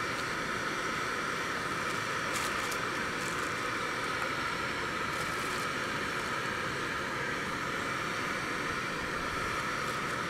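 Portable gas stove burner hissing steadily under a simmering pot, with a few faint light clicks a few seconds in.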